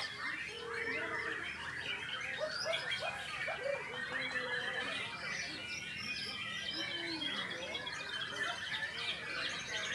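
Many male white-rumped shamas (murai batu) singing at once, a dense, continuous mix of overlapping whistles, trills and chirps.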